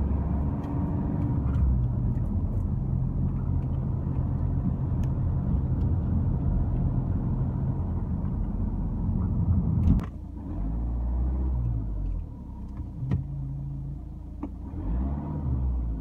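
Inside the cabin of a moving 2011 Vauxhall Insignia 2.0 CDTI with its A20DTH diesel engine: engine and road noise with a steady low buzzing drone. There is a sharp click about ten seconds in, after which it is quieter, and the low drone comes and goes. The buzzing is the known A20DTH fault that the owner cures by fitting a vacuum reservoir in line with the wastegate actuator solenoid valve's hose.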